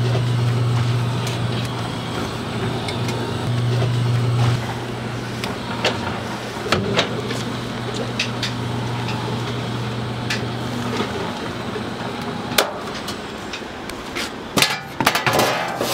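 Kitchen work sounds: a steady low machine hum that stops after about eleven seconds, with scattered knocks and clinks throughout and a quick run of knocks near the end.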